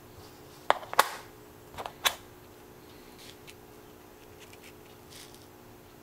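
Dimple bump key being struck in a Burg Wächter Boccia 450/50 dimple padlock: sharp metallic knocks in two quick pairs, about a second apart, followed by faint small clicks of handling.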